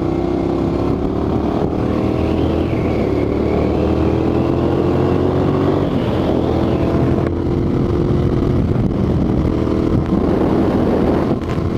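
Exhaust and engine of a 2008 United Motors V2S 650R motorcycle under way at road speed, the engine note rising slowly, heard through an open helmet visor with heavy wind rushing past.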